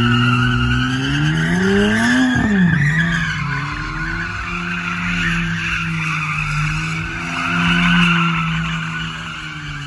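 Dodge Challenger doing donuts: its engine revs climb for about two seconds, drop, then hold steady under power, while the rear tyres squeal continuously as they spin and slide.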